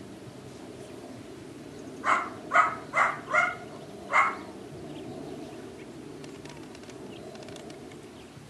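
Dog barking: four sharp barks in quick succession about two seconds in, then a fifth about a second later.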